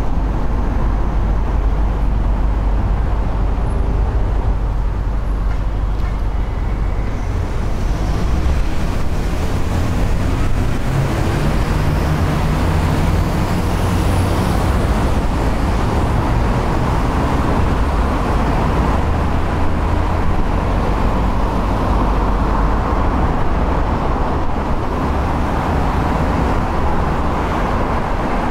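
Steady low rumble of wind and road noise from a moving bicycle, mixed with motor-vehicle traffic noise that swells in the second half.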